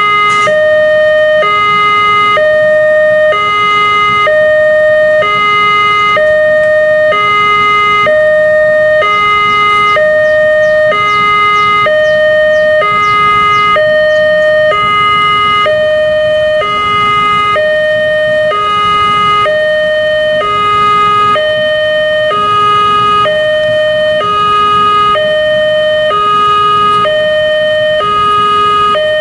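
Railway level-crossing warning alarm sounding: an electronic two-tone signal alternating steadily between a higher and a lower note, each held about a second, which warns that a train is approaching and the crossing is closed.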